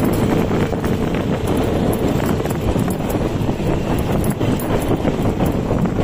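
Beker Cross 150cc motorcycle engine running steadily while riding a rough dirt track, with wind buffeting the microphone.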